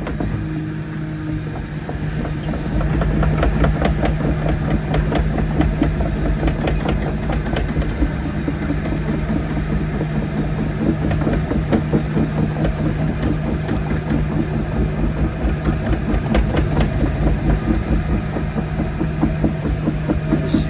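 Excavator's diesel engine running steadily under load while the machine smooths dirt, stepping up in loudness about three seconds in, with a fast rattle over the hum.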